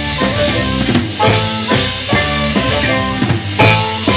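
Live band playing an instrumental passage: an alto saxophone line over electric guitar and a drum kit.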